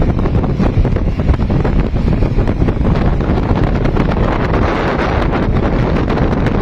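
Strong wind buffeting the microphone: a loud, steady, rumbling rush with frequent gusty thumps and no speech.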